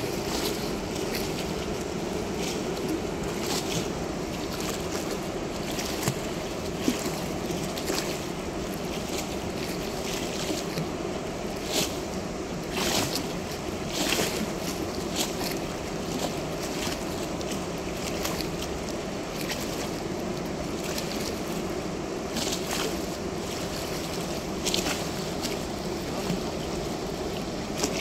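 Water rushing steadily through a weir's sluice gate, with scattered sharp clicks through it.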